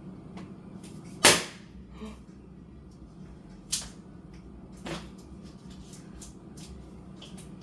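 Kitchen clatter: sharp knocks and clicks of utensils or containers being handled. The loudest comes about a second in, with a few smaller ones later, over a low steady hum.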